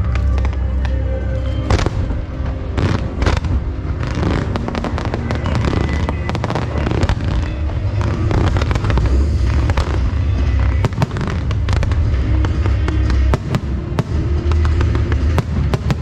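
Fireworks bursting and crackling in quick, irregular succession over loud show music with a heavy bass.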